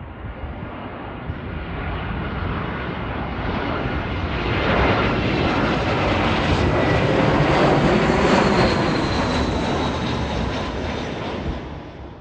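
A British Airways Airbus A320 with IAE V2500 turbofans flies low overhead on final approach with its gear down. The engine noise builds to a peak around the middle, with a high whine that drops slightly in pitch as the jet passes, then fades away.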